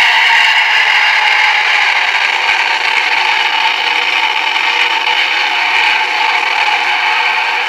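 Recorded Avro Vulcan jet engine roar played back loudly through a model's small built-in speaker, a steady roar with several held tones and no bass.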